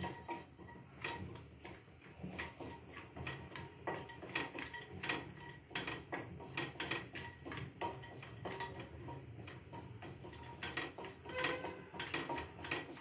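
Wooden spatula stirring cashews frying in ghee in a stainless steel pot, with irregular knocks and scrapes against the pot.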